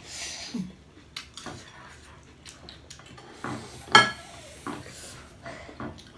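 Dishes and cutlery clattering in a series of small knocks and clicks, with one sharp ringing clink about four seconds in.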